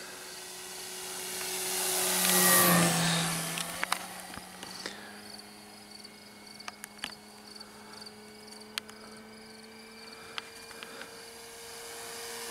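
An electric RC Cessna 150 Carbon-Z's motor and propeller drone as it flies. It passes loudest about two to three seconds in, its pitch falling as it goes by, then drones on steadily at a distance. Crickets chirp in the background, and there are a few sharp clicks.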